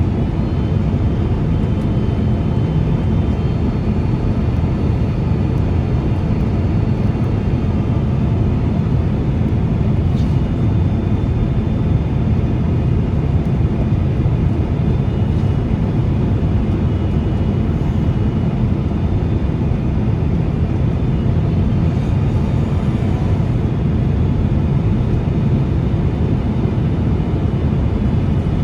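Steady cabin noise of a Boeing 767 airliner in flight: a constant engine drone and rushing air, with a few faint, thin, high steady tones over it.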